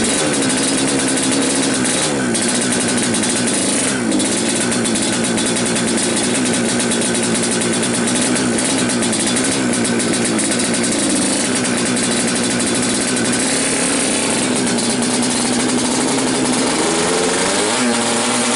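Yamaha RX-King's two-stroke single-cylinder engine, in bleyer racing tune, running at a steady speed with small rises and falls in pitch, climbing in pitch near the end.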